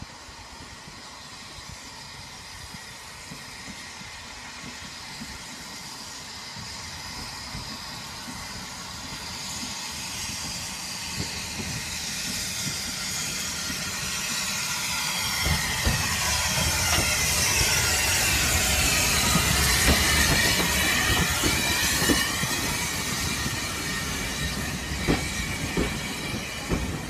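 Steam tank locomotive and its coaches running slowly into a station platform, growing steadily louder as they approach, with a hiss and high squealing tones from the wheels in the middle part. From about halfway in, the coach wheels click over the rail joints as they pass close by.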